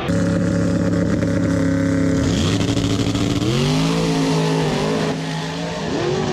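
Drag-race car engines launching off the line. The engine holds a steady high rev for about two seconds, then revs up as the cars leave, its pitch climbing and dropping back at each gear change as they run away down the track.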